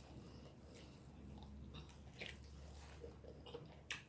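Faint close-up chewing of boiled corn on the cob, with a few short mouth clicks and smacks, the sharpest near the end, over a low steady hum.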